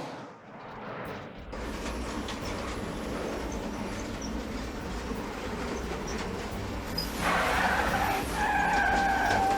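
Cartoon sound effect of a steady low rumbling, clattering noise, like a train running, which grows louder near the end and is joined by a sustained high tone.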